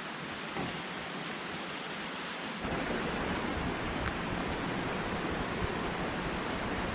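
Steady rush of running water from a mountain stream or waterfall. About two and a half seconds in it turns louder and deeper, with a low rumble added.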